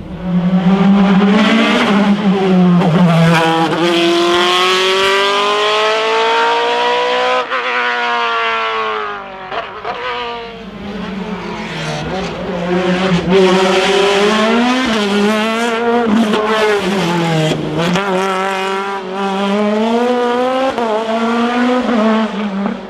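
A racing car's engine revving hard at a hillclimb, its pitch climbing and then dropping at each gear change, with one long climb then a sharp drop about seven seconds in. It eases off briefly around ten seconds in, then revs up and down again through shifts, with a few sharp cracks at the changes.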